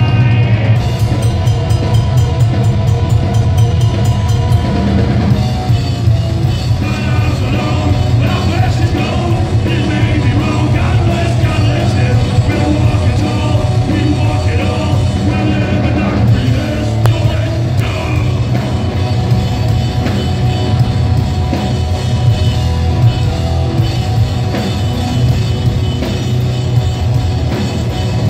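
Heavy rock band playing live at full volume: distorted electric guitars, bass guitar and a drum kit in a steady driving groove. It is heard from among the audience, with a boomy, overloaded low end.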